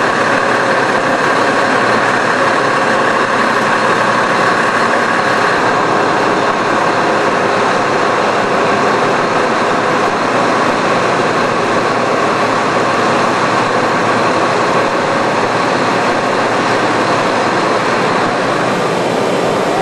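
Heavy machinery running steadily: a constant, unchanging hum and hiss.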